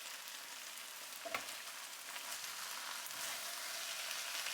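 Beef liver, onions and potatoes frying in a pan, giving a steady high sizzle, with one light tap about a second and a half in.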